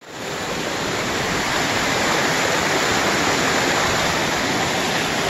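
Steady, loud rush of whitewater in a rocky mountain creek, tumbling over rocks close by.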